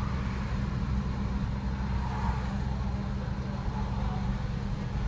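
Steady low hum of idling vehicle engines from the stopped trucks and car, heard from inside a car's cabin.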